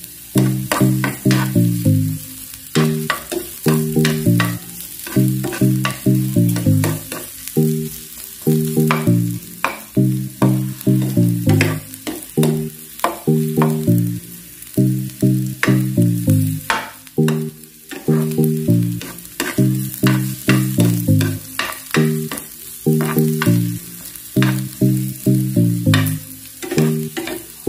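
Garlic, red onion and ginger sizzling in hot oil in a nonstick frying pan, with a plastic spatula stirring and scraping them in quick repeated strokes. A low repeating background tune plays underneath.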